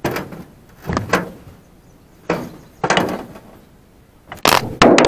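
Aluminium boat hull knocking and scraping on a concrete boat ramp as it is pushed off: four separate thuds with short scrapes, then a loud continuous rush near the end as the boat lurches into the water.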